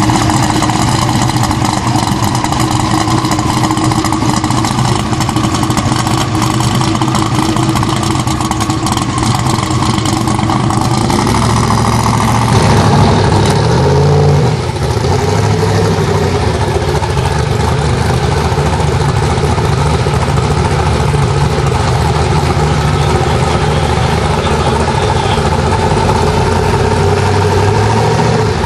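Twin-turbo Buick Grand National engine idling steadily, with a short rise in revs about thirteen seconds in.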